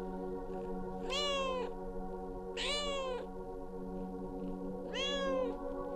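Pregnant Bengal cat in labor meowing loudly three times, each meow about half a second long and rising then falling in pitch. These are the distressed calls of a queen in labor with her first litter.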